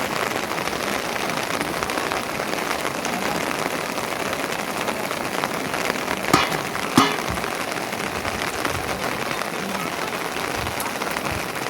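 Steady rain falling and pattering on a surface, with two short knocks about six and seven seconds in.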